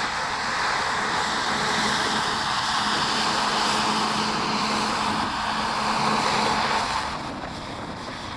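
Caterpillar crawler dozer running steadily as it pushes sand, a continuous engine-and-track noise that eases off a little near the end.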